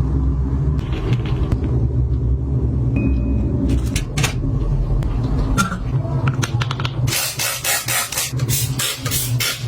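Kitchen handling sounds over a steady low hum: scattered light clicks and knocks of objects being handled, then, about seven seconds in, a quick run of scraping or rustling strokes, about four a second.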